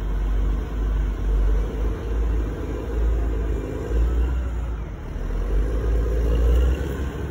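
Heavy diesel snow-removal machines, a road grader and a snow blower, working the street: a steady low engine rumble that swells and eases every second or two.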